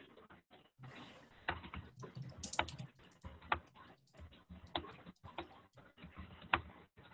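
Scattered keystrokes on a computer keyboard: sharp taps at uneven spacing, about one a second, coming through a video-call connection that keeps cutting the background sound in and out.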